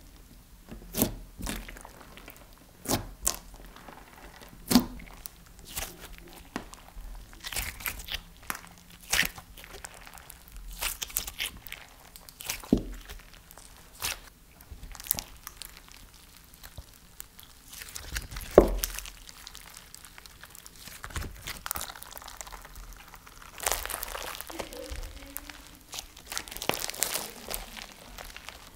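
Orange slime packed with small clear beads being squished and poked by hand, giving irregular wet pops, clicks and crunches. Near the end it is stretched out, with a denser crackling sound.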